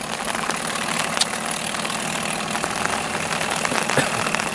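Small outboard motor idling steadily on the stern of a makeshift bathtub boat.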